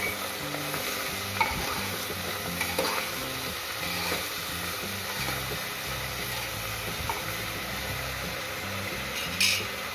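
Shredded cabbage and potato pieces sizzling in hot oil in an open pressure cooker while being stirred with a spoon, the spoon knocking and scraping against the pot a few times, loudest near the end.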